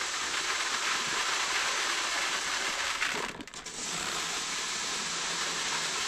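Dry soybeans pouring into a bag, a steady rattling rush of hard little beans that breaks off briefly about halfway through and then resumes.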